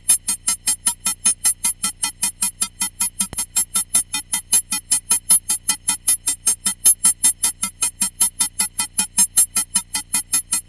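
Rapid electronic beeping: short, loud, identical beeps repeating evenly at about five a second.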